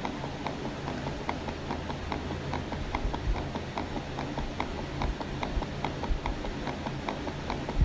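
A steady run of light clops, about four a second, over a low rumble.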